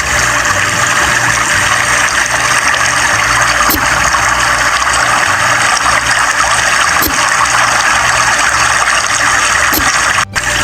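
Water rushing steadily, with a low uneven hum beneath it, cut off briefly near the end.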